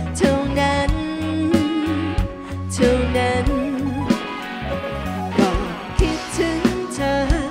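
Live rock-pop band playing a song: a woman sings a melody with vibrato on held notes over electric guitars, bass guitar and a drum kit keeping a steady beat.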